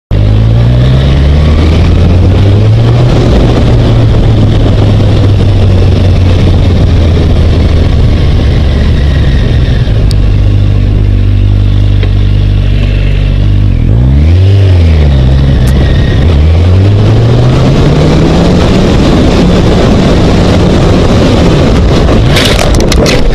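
Motorcycle engine running under way with heavy wind rush over the helmet-mounted microphone; about two thirds through the engine briefly revs up and drops back, then climbs steadily as the bike accelerates. Near the end a burst of sharp knocks and crashes as the collision begins.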